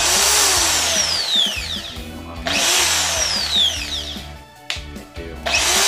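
Black+Decker corded hammer drill motor run free in three bursts of about two seconds each, its high whine falling in pitch during each burst.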